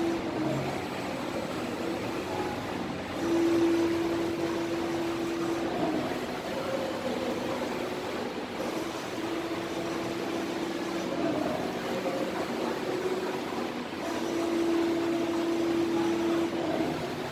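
Flatbed piezo inkjet exposing machine running: a steady mechanical hum, with a motor tone that comes in for about two seconds at a time, three times, as the print-head carriage travels on its passes.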